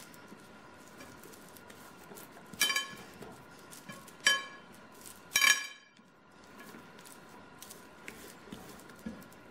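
Three short ringing clinks, as of something hard knocking the ceramic bowl, while hands rub butter into a raw chicken, the second and third closer together. Between them, faint handling of the bird.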